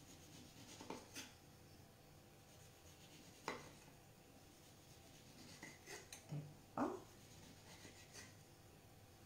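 Faint knife work on a wooden cutting board as the peel is cut off an orange: light scraping with a few scattered clicks and knocks, the loudest about three and a half seconds in and again near seven seconds.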